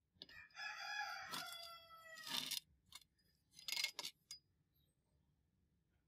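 A rooster crowing once, a faint single call of about two seconds, followed a second or so later by a short rasping sound.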